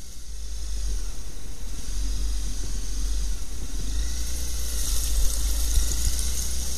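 Trail motorcycle ridden along a muddy track, wind rumbling on the camera microphone with the engine under it. From about four seconds in, a hissing splash of water as the wheels run through a deep puddle.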